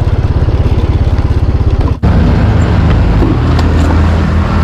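A Yamaha scooter's small single-cylinder engine runs at low speed with a fast, even pulsing, cuts out for an instant about two seconds in, then carries on as a steady hum, settling towards idle as the scooter stops.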